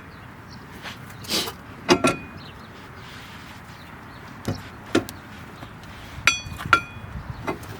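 Metal tools and brake parts knocking and clinking as a brake caliper is refitted, with two short ringing metallic clinks near the end and a couple of brief hissy rustles earlier.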